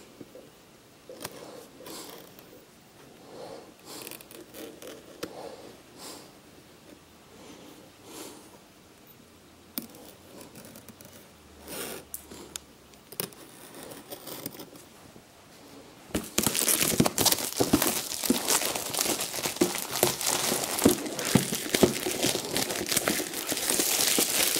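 Plastic shrink-wrap being torn off a model kit box. At first there are only faint scratches and taps as the wrapped box is handled. About two-thirds of the way through comes loud, continuous crinkling and crackling as the film is ripped away.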